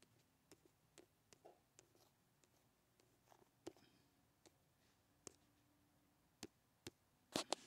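Faint scattered taps and clicks, about a dozen, with a louder double tap near the end: a finger tapping and sliding on a phone's touchscreen, over a faint steady hum.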